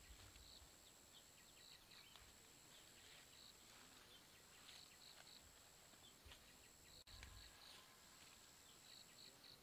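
Near silence: faint rural field ambience with a steady high-pitched insect drone and short chirps repeating every second or so.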